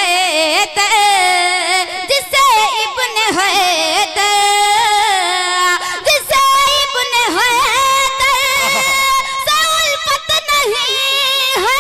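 A female voice singing a naat in long, drawn-out melismatic notes that waver and glide, with no clear words.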